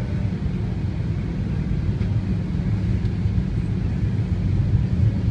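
Airliner cabin noise during landing: a steady low rumble heard from inside the cabin.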